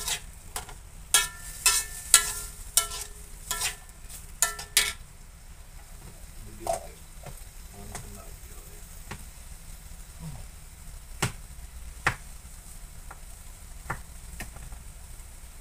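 A spoon clinks sharply against a seasoning jar and wok about ten times in the first five seconds, each clink ringing briefly. After that, a metal spatula stirs mixed vegetables in a wok over a low sizzle, with a few single knocks against the pan.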